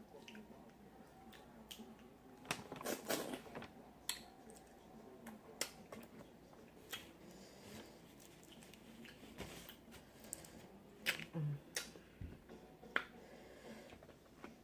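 Open-mouth chewing and lip smacking close to the microphone: scattered wet clicks and smacks, louder about three seconds in and again around eleven to thirteen seconds.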